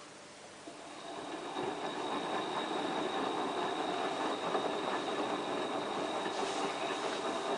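Hotpoint Ultima WT960 washing machine running on its wool cycle: after a quiet first second, a steady machine and water noise builds up and then holds level, with a faint high whine running through it.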